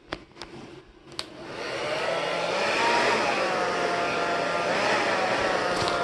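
Hand-held hair dryer switched on after a few clicks, spinning up over about half a second and then blowing steadily, with a thin whine that wavers in pitch.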